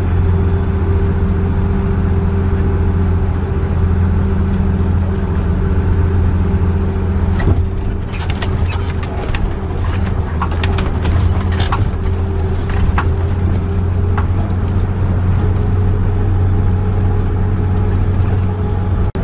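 Motorhome engine running steadily under load on a long uphill climb, heard from inside the cab as a constant low drone. About halfway through there is a run of sharp rattles and clicks lasting several seconds.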